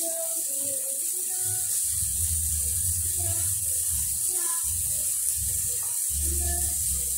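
Oyster-sauce gravy with baby sawi and an egg heating in a wok toward the boil, giving scattered small bubbling pops. A steady hiss and an uneven low rumble run underneath.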